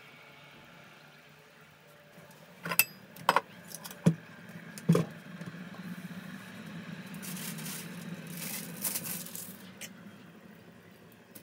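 Four sharp clacks of utensils and metal on a stainless steel stand-mixer bowl within about two and a half seconds, followed by a few seconds of rustling as a paper towel wipes the countertop.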